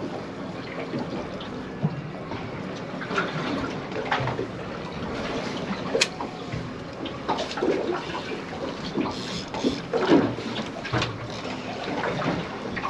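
Water lapping and slapping against the hull of a drifting aluminium fishing boat, in uneven surges, with one sharp click about halfway through.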